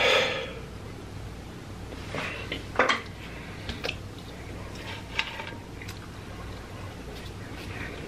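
Close-miked eating: a person chewing and crunching fried food, with a few scattered sharp clicks and clatters. There is a brief loud burst at the very start.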